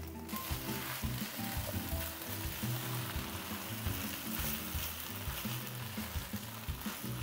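Kimchi fried rice sizzling in a hot nonstick wok as a spatula tosses and stirs it, the rice freshly dressed with sesame oil and the burner already off. The sizzle comes up sharply a moment in and then runs steadily.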